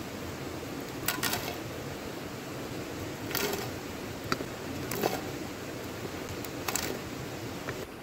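Fried potato cubes dropping onto a metal tray in several short clattering bursts, a second or two apart, over a steady background hiss.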